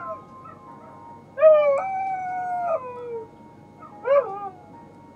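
Dog howling: the end of one howl at the start, then a long howl about a second and a half in that holds and then slides down in pitch, and a short rising-and-falling howl near the end.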